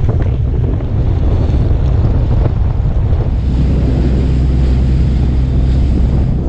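Wind buffeting the microphone over the low, steady drone of a fishing boat's engine, with the sea washing around the hull.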